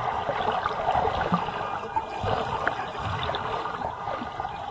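Swimming pool water churning and bubbling around a swimmer as she turns at the wall and kicks away, with scattered small pops of bubbles in a steady rush.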